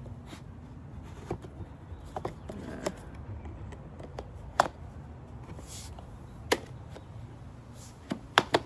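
Scattered light clicks and knocks of hard plastic parts being handled: a cordless leaf blower's longer extension nozzle being taken out and handled, with three quick knocks close together near the end.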